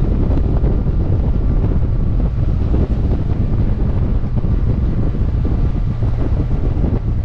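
Steady wind buffeting a motorcycle-mounted microphone, with the BMW F800GT's parallel-twin engine running underneath as the bike rides along.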